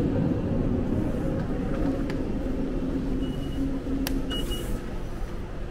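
Steady rumble and hum of a busy rail station concourse, with two short, high electronic beeps a little past the middle and a click just before the second beep.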